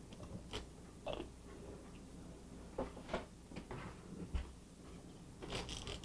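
Faint, scattered crinkles and clicks of crumpled aluminum foil and a glue squeeze bottle being handled as a line of tacky glue is squeezed out onto the foil.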